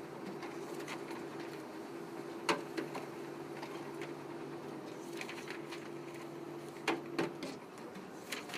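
Elevator car running: a steady mechanical hum with a few clicks. The hum stops with a clunk about seven seconds in, as the car comes to a halt.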